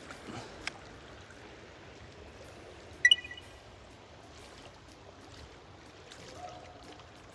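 Fast current of a flooded river flowing, a steady noise of moving water. About three seconds in, a brief sharp high-pitched chirp cuts through.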